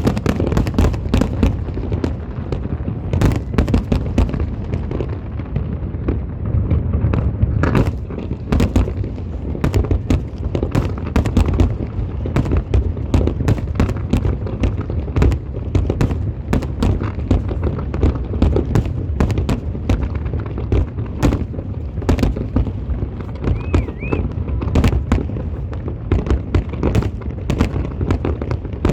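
Fireworks display going off in a dense, continuous barrage: many sharp bangs and crackles a second over a steady low booming from the shell bursts.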